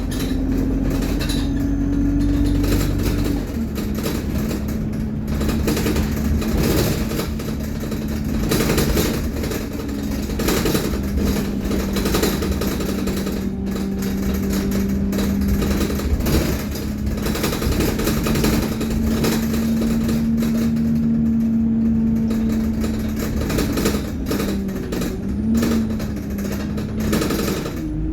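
ADL Enviro200 single-deck bus running, with a steady low drone from the driveline that shifts pitch several times as the bus changes speed. Dense rattling runs through it.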